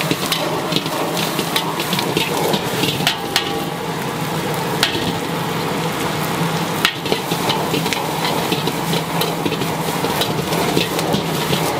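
Prawns sizzling and frying in a hot wok while a metal ladle stirs them, clanking and scraping against the wok again and again, with one sharper clank about seven seconds in.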